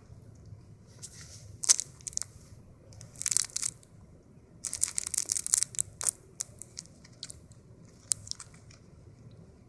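Crisp crinkling and crunching in four short bursts with pauses between, like paper or plastic being crumpled or handled.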